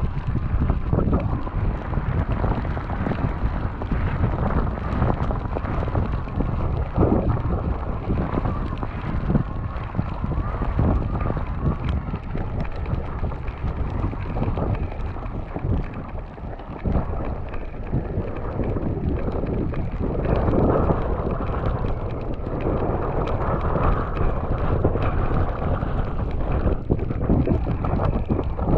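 Wind buffeting an action camera's microphone while riding an e-bike, a steady loud rumble that rises and falls.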